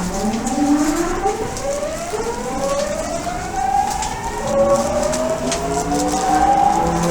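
Odakyu 1000 series train's Mitsubishi GTO-thyristor VVVF inverter whining as the train accelerates: several tones climb together in pitch, then jump to a new set about four and a half seconds in and keep rising.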